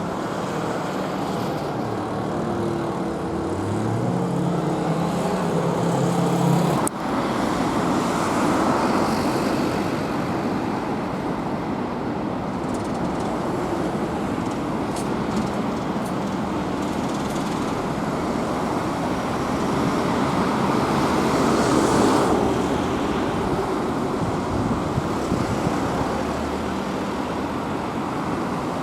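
Road traffic. For the first several seconds an engine accelerates, its pitch rising, then the sound cuts abruptly to steady traffic noise. A vehicle passes more loudly about two-thirds of the way through.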